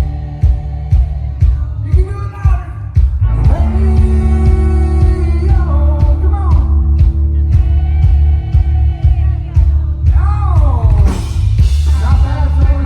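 Live band performing: a singer over a drum kit and a heavy, steady bass.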